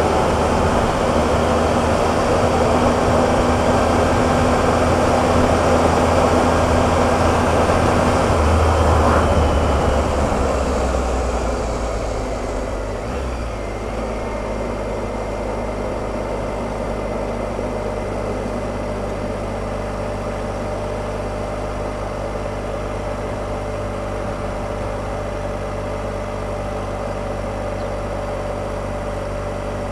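Triumph Explorer motorcycle's three-cylinder engine and wind noise at road speed, dying away about ten seconds in as the bike slows, then the engine idling steadily.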